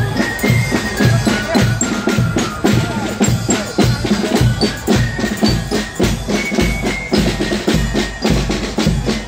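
Marching parade band music: drums beating a steady march rhythm under a high, bell-like melody.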